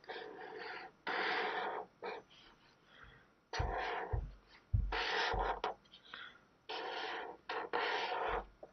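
Felt-tip marker scratching across paper in a series of back-and-forth strokes, each about half a second to a second long, filling in a shape. A few low thumps come around the middle and again near the end.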